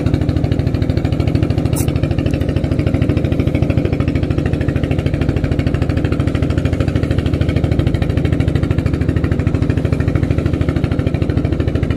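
Small engine of a 'ces' motor boat running steadily with an even, rapid putter. A single sharp click about two seconds in.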